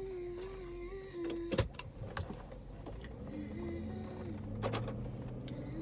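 A young woman humming a slow, wavering tune inside a car, broken by a sharp knock about a second and a half in. After about three seconds a low steady car hum comes up under the humming, which resumes briefly.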